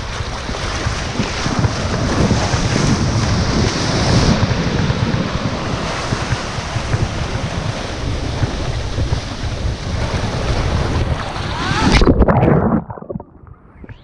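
Shallow surf washing and foaming around a GoPro held at the waterline, with wind buffeting the microphone. Near the end the sound drops suddenly to a muffled low rumble as the camera dips into the water.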